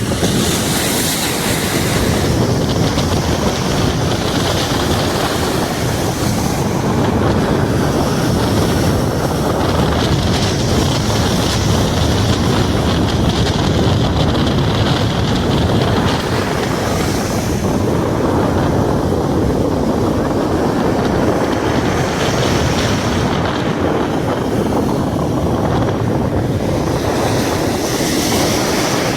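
Sea waves breaking and washing onto the shore, a hiss of surf swelling up every few seconds, with strong wind buffeting the microphone as a steady low rumble.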